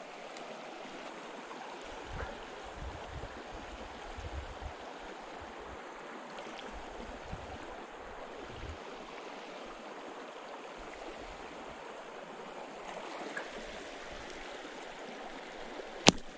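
Steady rush of flowing stream water with scattered low thumps, then near the end a single sharp snap as a catty (slingshot) is shot at a trout.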